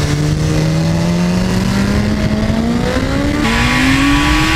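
Sportbike inline-four engines accelerating hard at speed, the engine note climbing steadily. About three and a half seconds in, a second superbike takes over, still rising in pitch, with more wind rush.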